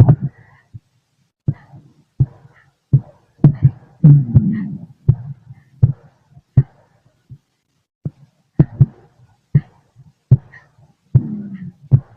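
Heartbeat heard through a stethoscope: short low thuds at a steady pace, about four beats every three seconds. A longer low rumble with a falling pitch comes in twice, about four seconds in and again near the end.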